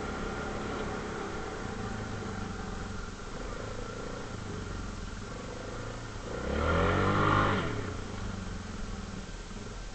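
ATV engine running steadily. About six seconds in it swells louder for a second and a half, rising in pitch and then falling back.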